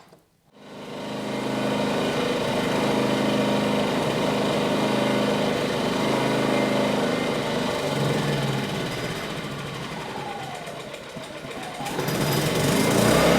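Ryobi portable inverter generator's small engine running steadily. Near the end its speed sags as if winding down, then it revs back up and keeps running louder, because it will not stop: a broken wire near the control-knob stop switch.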